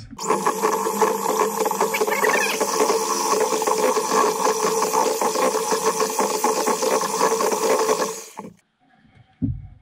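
Electric hand mixer running steadily at one speed, its twin whisk beaters churning flour into thin pancake batter in a stainless steel bowl; it switches off a little over eight seconds in.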